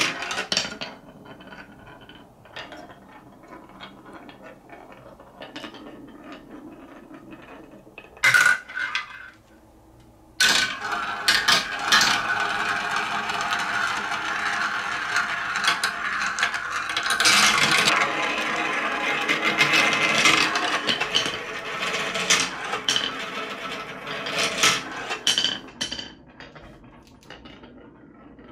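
Small plastic balls rolling and clattering through a plastic marble run, with a sharp clack about eight seconds in and then a long continuous rolling rattle as balls circle the dishes and drop through the tubes. Near the end the sound is quieter, as balls roll down a wooden wave slope into a plastic catch tray.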